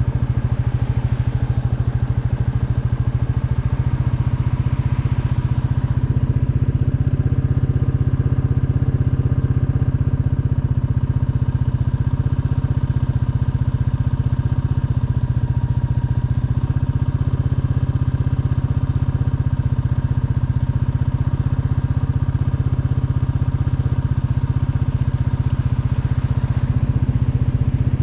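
Royal Enfield Meteor 350's single-cylinder engine idling steadily.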